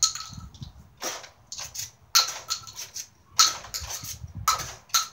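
Pump-action Nerf blaster being pumped and fired over and over, giving sharp plastic clacks about once a second. Ejected shotgun shells clatter onto concrete.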